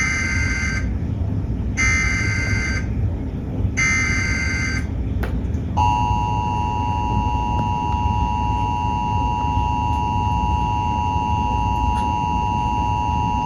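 Emergency Alert System SAME header: three bursts of warbling data tones, each about a second long with a second's gap between them. About six seconds in comes the steady two-tone EAS attention signal, which runs on. Constant radio noise lies underneath.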